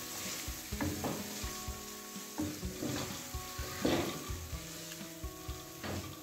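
A spatula scraping and tapping repeatedly against a nonstick karahi as boiled chickpeas are stirred through a sizzling tomato-and-spice masala.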